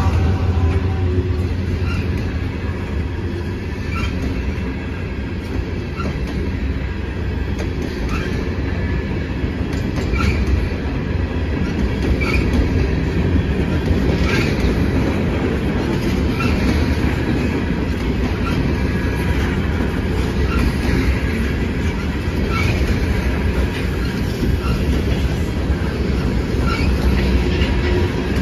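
Empty coal cars of a freight train rolling past trackside, a steady rumble with a clack of wheels over the rail about every two seconds. A diesel locomotive's engine hum fades out in the first second as it passes.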